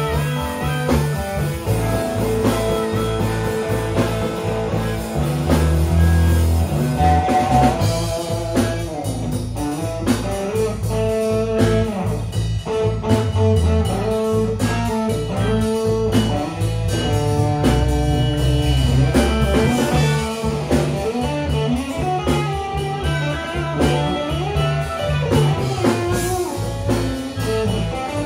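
Blues band playing an instrumental passage: harmonica played into a microphone, with long bending notes, over electric guitar and electric bass.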